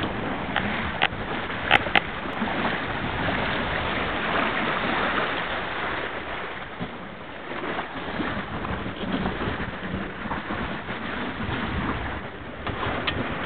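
Wind buffeting the microphone and water rushing and splashing along the hull of an RS200 sailing dinghy running downwind, a steady rushing noise that swells and eases with the waves. Two sharp knocks come about two seconds in.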